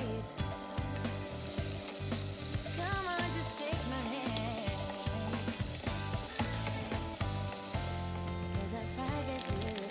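Pork belly cubes and chopped garlic sizzling in hot oil in a frying pan while being stirred with a wooden spoon. A steady hiss runs throughout, over background music with a pulsing bass beat.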